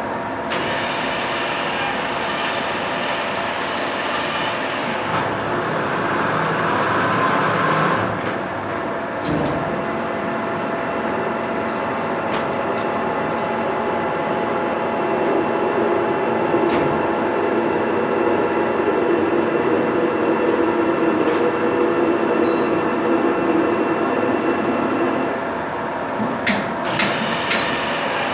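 Metalworking machine tool running steadily, a continuous mechanical drone with a few constant tones, and a handful of sharp clicks near the end.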